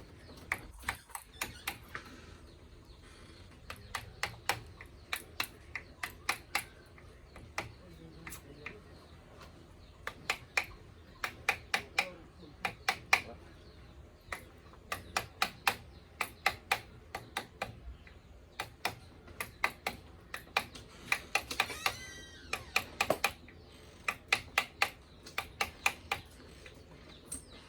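Sharp knocks from carpentry on a wooden door, coming in quick runs of several strikes, like nails being driven into the wood.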